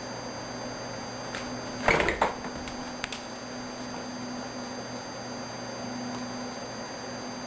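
Hobby servos of a small quadruped robot humming steadily as they hold and adjust its legs. About two seconds in comes a short clatter of knocks, with single clicks just before and about a second after.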